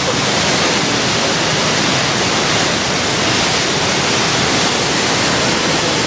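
River rapids in full flow: fast white water rushing steadily below a bridge.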